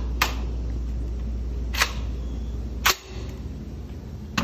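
Four sharp clicks, spaced about a second apart, from the 12-gauge AR-10 pistol being handled, over a steady low hum that drops away suddenly about three seconds in.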